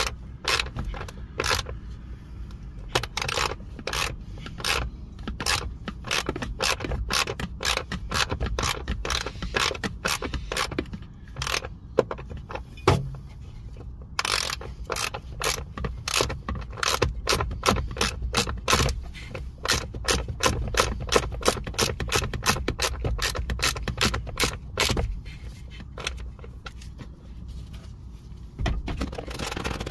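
Socket ratchet clicking in runs of sharp strokes with short pauses, driving in the screws that hold the replacement blower motor in a 2008 Pontiac G5's HVAC housing.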